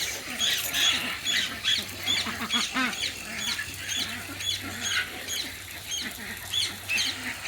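Poultry-yard birds calling: many short, high, downward-slurred peeps, several a second, with a few softer low calls underneath.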